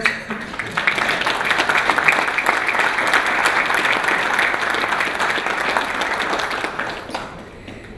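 Audience applause: many people clapping together, dying away near the end.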